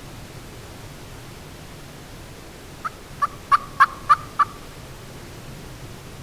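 A series of six turkey yelps: short, sharp notes about a third of a second apart, the middle ones loudest.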